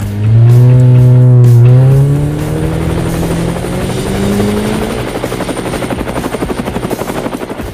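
Helicopter sound effect: a motor whine that climbs steadily in pitch over the first few seconds, then fast, regular rotor chopping.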